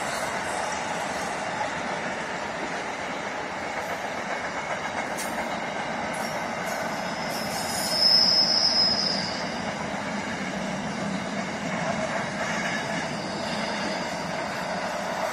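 Train cars rolling past with a steady rumble of wheels on rails. About eight seconds in, a loud, high-pitched wheel squeal rings for over a second.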